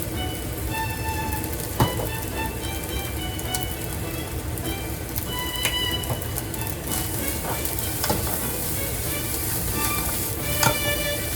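Fried rice sizzling as it is stir-fried, with a few sharp clinks, the loudest about two seconds in and near the end. Background music plays over it.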